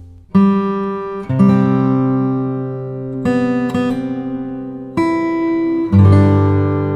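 Background music: an acoustic guitar strumming chords, a new chord struck about every one to two seconds and left to ring.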